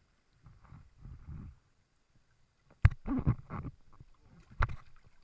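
River water sloshing and gurgling against a waterproof-cased action camera held at the waterline, with two sharp knocks from the housing being bumped.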